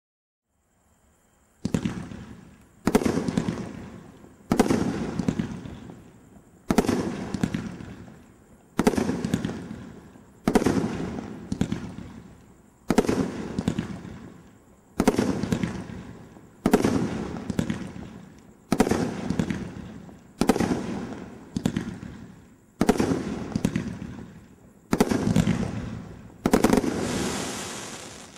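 A 500-gram consumer fireworks cake firing its shots one after another, about fourteen sharp reports roughly two seconds apart, each fading away over a second or so before the next.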